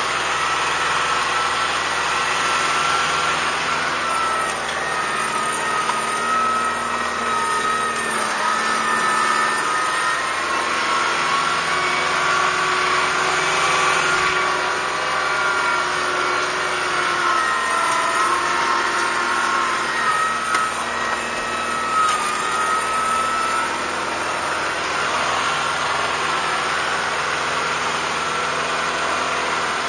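Kubota M5140 tractor's diesel engine running steadily under load, heard from the operator's seat as it pulls a box blade through dirt, with a higher whine that wavers slightly in pitch.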